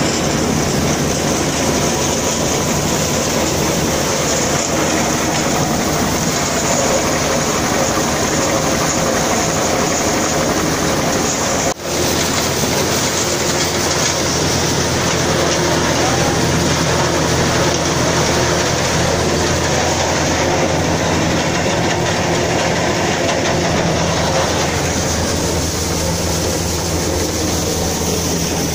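Corn sheller running steadily as popcorn-maize cobs rattle through it and are stripped of their kernels, over the steady run of a tractor engine. The noise cuts out for a moment about twelve seconds in.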